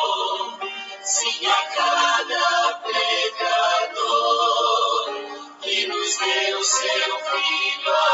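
Hymn music: melodic singing with instrumental accompaniment.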